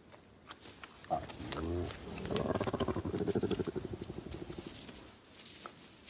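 A large wild animal growling at a kill. A short call bends up and down about a second in. Then comes a low, pulsing growl of quick pulses lasting about two and a half seconds, with a few sharp clicks scattered through.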